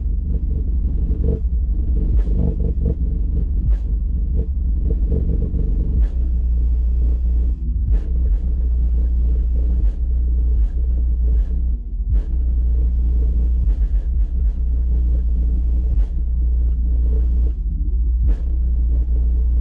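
Car-audio subwoofer in a Chevrolet S10 Blazer playing very deep bass at high volume: a heavy, continuous low rumble, broken by sharp clicks every second or two.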